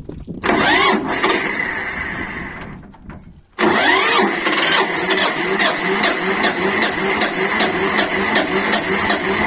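Shifeng SF138-2 diesel tractor engine being started. It catches about half a second in and fades away, then starts again at about 3.5 s and settles into a steady idle with a regular knock a little over twice a second. This is the knock the owner has tried to soften by shimming the injection pump to retard the timing; others put it down to a worn crankshaft bearing.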